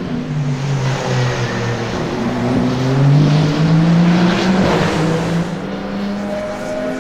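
Toyota GR010 Hybrid Le Mans hypercar's twin-turbo V6 under acceleration, its engine note rising in pitch and loudest about three to four seconds in, then dropping lower as the car passes and pulls away.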